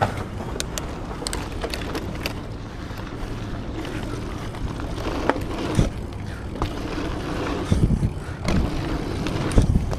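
Mountain bike riding a dirt-jump line: steady rumble of the tyres on packed dirt, with the chain and bike rattling and clicking throughout. Heavier thuds come in the second half, the loudest near the end, as the bike hits the jumps and lands.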